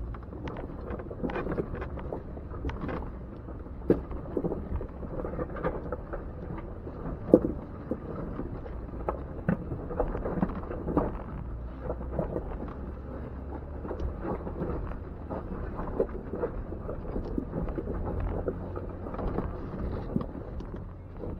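Jeep Wrangler crawling slowly up a rock-ledge trail: a steady low engine rumble under frequent knocks and clunks of tyres and underbody on rock, with one sharp bang about seven seconds in.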